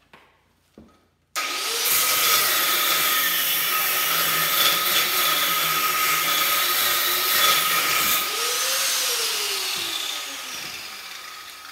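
Small angle grinder with a cutter blade starting suddenly about a second in and cutting through an aluminum heat sink clamped in a vise, a steady high motor whine over the grinding noise. It winds down and fades near the end.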